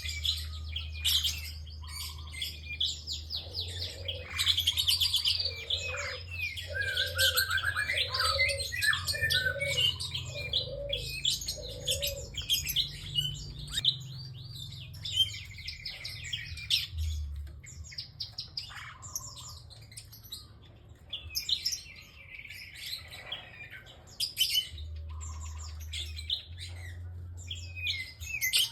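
A prinia singing without pause: rapid, high chirps and trills. A row of about seven low, evenly spaced notes runs through the first half, and a low hum sits underneath.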